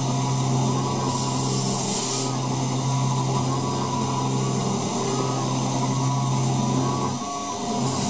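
Mini milling machine with a DIY treadmill motor running its spindle steadily while a countersink cutter cuts into an aluminium plate, with a brief hiss between one and two seconds in. The steady hum breaks off about seven seconds in.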